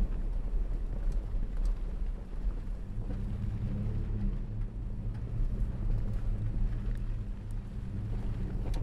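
Off-road truck on mud-terrain tyres driving along a dirt trail: a steady, low engine rumble with tyre and road noise, and a few faint ticks of gravel.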